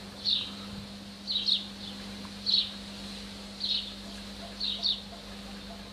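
A bird chirping repeatedly, with short, high, falling chirps about once a second, some in quick pairs, over a faint steady low hum.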